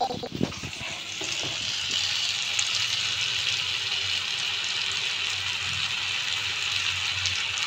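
Rose cookie batter on a flower-shaped rosette iron sizzling steadily in hot oil in a kadai, with a few knocks in the first second.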